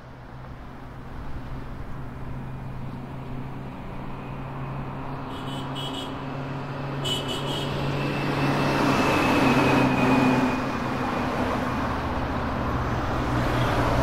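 City street traffic: cars and buses running with a steady engine hum and tyre noise. It fades in and grows louder over the first half. A few short high-pitched sounds come through about halfway in.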